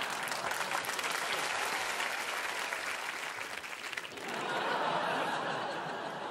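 Studio audience clapping and laughing in response to a punchline; the clapping is thickest in the first few seconds and the laughter swells again near the end.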